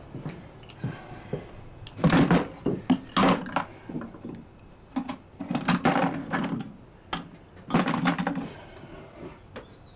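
Irregular wooden knocks and clatter in several loud clusters.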